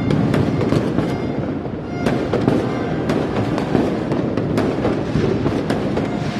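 Fireworks and firecrackers going off in a dense, continuous barrage of bangs and crackles.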